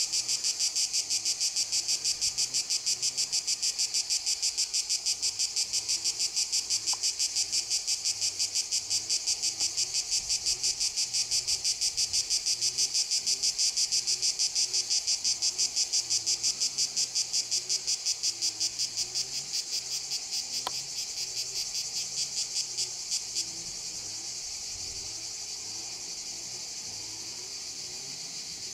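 Insects chirping in a rapid, even, high-pitched pulse that stops about 23 seconds in, leaving a steady high insect buzz.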